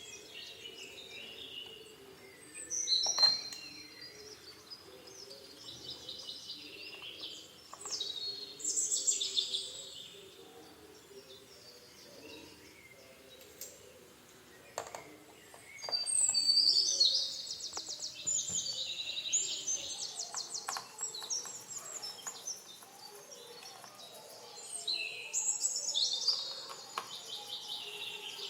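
Birds chirping in four short bouts of a second or two each, with quick high trills and falling notes, over a faint steady background noise. A few sharp clicks are heard between the bouts.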